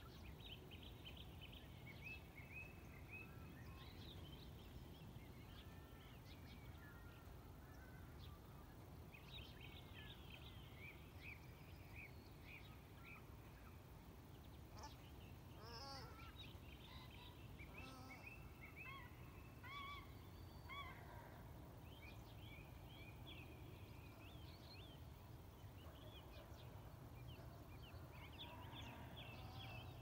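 Faint dawn chorus of many songbirds, short chirps and trills from several birds at once, over a low steady rumble.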